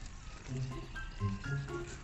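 Background music with a regular bass line and short held melody notes.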